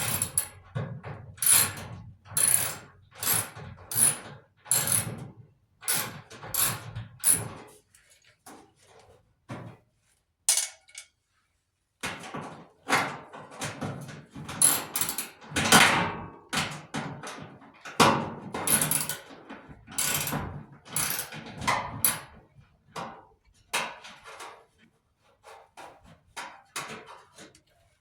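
Irregular clanks, knocks and rattles of hand tools and sheet-metal parts being worked while a clothes dryer is taken apart, with a few seconds of quiet about a third of the way through.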